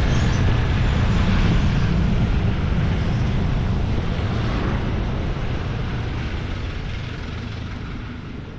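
Steady engine rumble with a wash of noise, slowly fading out over the last few seconds.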